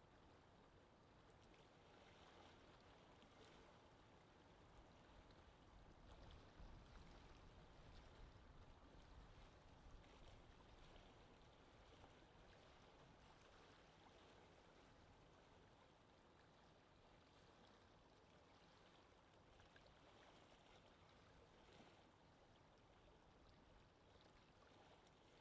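Faint wind ambience: a steady, even rush of noise, with a low gusty rumble swelling for a few seconds near the middle.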